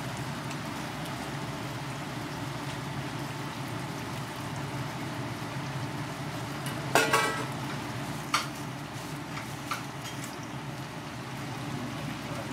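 Hotteok sizzling steadily in shallow oil on a flat griddle, with a few sharp clicks, the loudest about seven seconds in.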